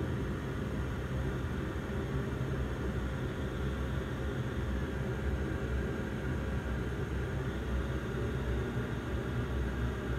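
Bombardier Dash 8 Q400's Pratt & Whitney PW150A turboprops and propellers running steadily at taxi power, heard from inside the passenger cabin as a low, even drone with a faint steady tone over it.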